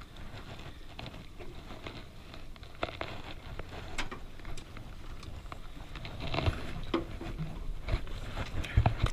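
Irregular clicks and knocks, with a couple of heavier thumps near the end.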